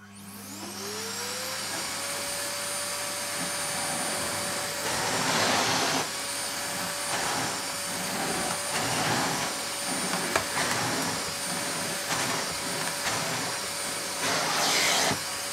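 AEG PowerForce bagged cylinder vacuum cleaner switched on at full power: the motor spins up with a rising whine that levels off after about two seconds, then runs steadily. The floor nozzle is pushed over carpet, with louder rushing surges about five seconds in and again near the end.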